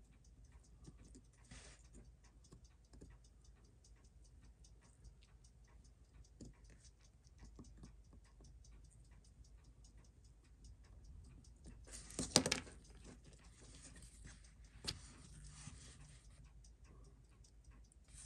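Steel tweezers clicking and scraping on the metal parts of a Seiko 6309 automatic watch movement as its train bridge is pulled, with a sharp clatter about twelve seconds in and a smaller click a few seconds later. A faint, steady, fast ticking runs underneath.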